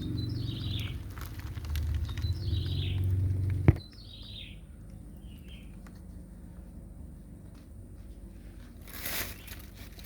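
A few short, falling bird chirps, about four of them, over a low steady hum that cuts off abruptly with a click before the middle. A brief rustle near the end.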